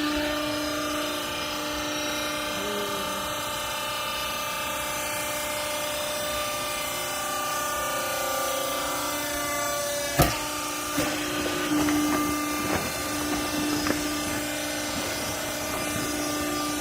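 Scrap-cloth press baler running with a steady machine whine. A single sharp knock comes about ten seconds in, followed by several lighter knocks.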